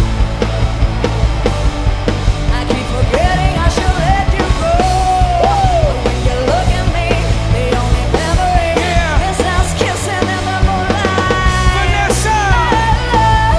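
Live band playing up-tempo pop-rock, with a woman singing lead over it.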